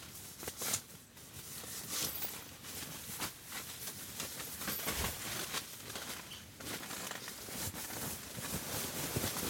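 Irregular rustling and crinkling with scattered light knocks: camping gear or bedding being handled.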